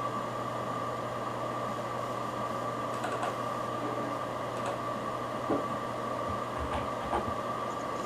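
Seagate FreeAgent Desktop external hard drive running: the steady whine and hum of its spinning platters, with a constant high tone. A few scattered soft clicks of the read/write heads seeking come between about three and seven seconds in.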